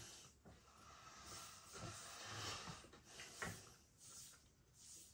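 Near silence with faint mouth noises of eating: soft chewing and lip sounds, with a small click about three and a half seconds in.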